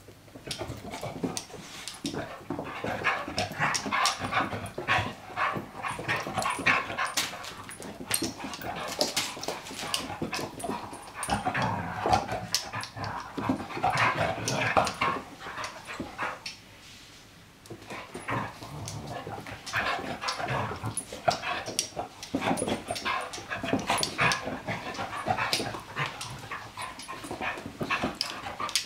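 Two dogs, a black puppy and a larger golden-red dog, play-fighting and vocalising in a dense, irregular run of short sounds. The sounds start abruptly and pause briefly about two-thirds of the way through.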